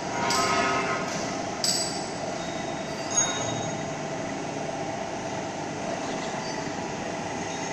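Steady mechanical running noise of shop machinery, with a few metallic clinks in the first second or so and one sharp click about three seconds in.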